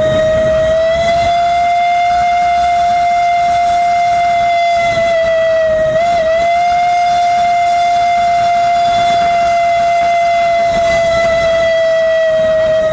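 Steam whistle on a Mount Washington Cog Railway steam locomotive, blowing one long unbroken blast on a single pitch. The pitch wavers briefly about halfway through and sags slightly near the end.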